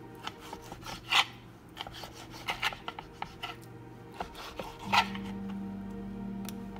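Kitchen knife slicing through raw marinated beef steak and knocking and scraping on the cutting board, in scattered strokes, the loudest about a second in and again near five seconds.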